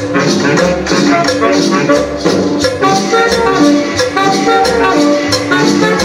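Colombian cumbia (gaita) dance music played loud through a sound system, with a steady percussion beat over a bass line and melody.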